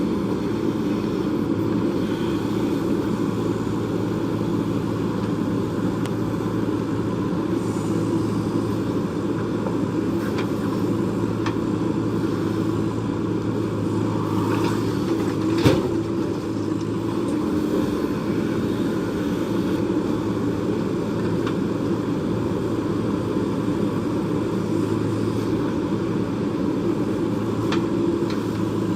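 JCB backhoe loader's diesel engine running steadily under work, with a single sharp knock about halfway through.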